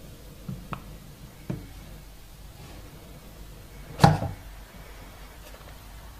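Cardboard iPhone box being opened by hand: a few faint clicks of the lid and box, then one sharp knock about four seconds in as a part of the box is set down on the table.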